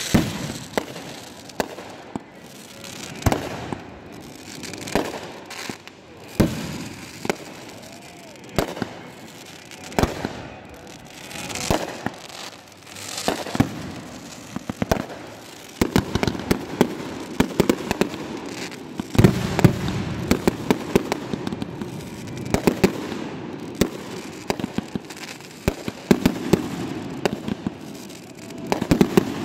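Fireworks going off: single bangs every second or two at first, then from about halfway a rapid barrage of booms and crackling.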